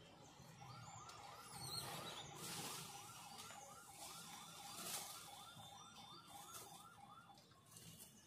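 A faint electronic siren warbling quickly, about four rises and falls a second, stopping about seven seconds in. A few brief rustles are heard along with it.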